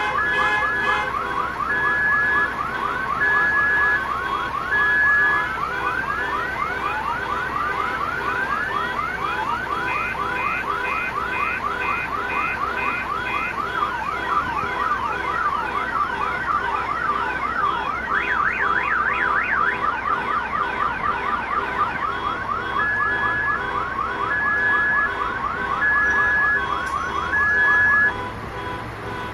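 Car alarm siren cycling through its tone patterns: a slow two-tone alternation, rising sweeps, rapid pulsing beeps and a fast warble, then the two-tone again, stopping near the end.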